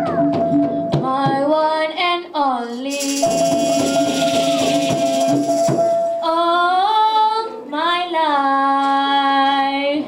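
A female soloist singing an ornamented Dikir Barat vocal line into a microphone, her pitch sliding and bending between held notes. A steady held note sounds beneath her, and rattling percussion joins from about three to six seconds in.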